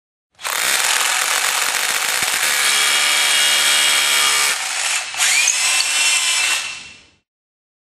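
Power drill driving a Raptr self-tapping masonry screw through a timber batten into a hollow concrete block, the screw cutting its own thread in the concrete. The drill starts about half a second in, runs steadily, dips briefly about five seconds in, runs again and stops near the seven-second mark.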